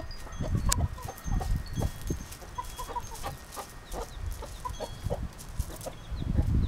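Chickens clucking in many short, separate calls.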